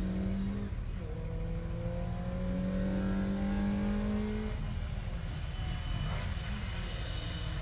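Rally car engine at a rally start line, its note climbing steadily for about four seconds and then dropping away, over a constant low rumble of other engines.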